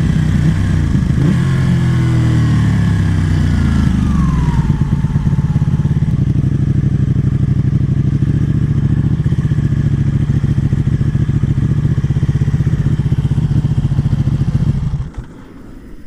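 Motorcycle engine, its note falling as it slows over the first few seconds, then running at a steady, even pulse until it cuts off abruptly near the end.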